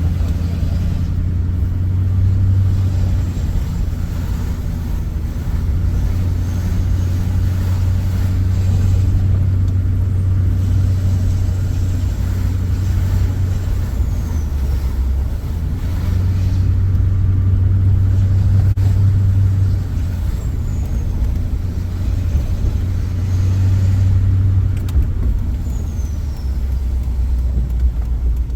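2006 Duramax LBZ 6.6-litre V8 turbo-diesel engine of a pickup under way, its low note swelling and easing several times as it pulls.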